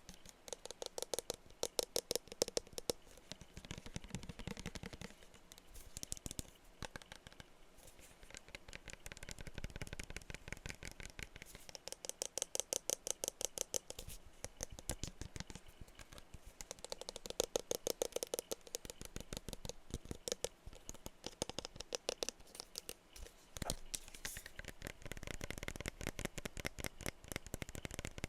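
Fast, light tapping on glass perfume bottles, many taps a second, in runs that swell and fade.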